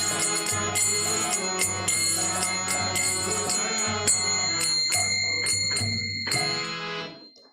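Instrumental close of a kirtan: a held chord under small hand cymbals (kartals) striking in a steady rhythm, with a low drum beat. The playing stops about six seconds in and the ringing dies away over the next second.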